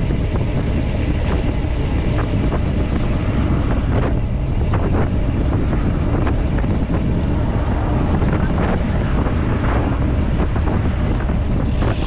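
Wind buffeting the microphone of a handlebar camera on a road bike at about 30 km/h: a steady, loud low rumble, with a few small clicks and rattles from the bike.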